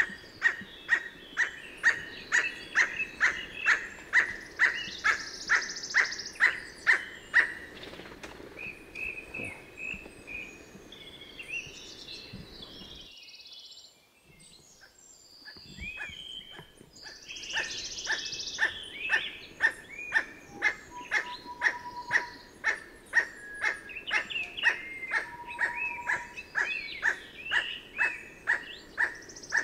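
Emerald toucanet calling: a long series of short, harsh notes repeated about twice a second, breaking off for a few seconds midway and then starting again. Fainter chirps of other birds sound in between.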